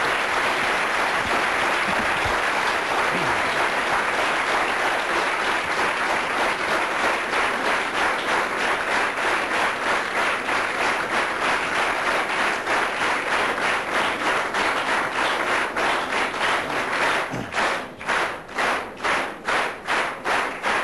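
A large audience applauding. The dense applause turns into rhythmic clapping in unison, about two and a half claps a second, from around six seconds in.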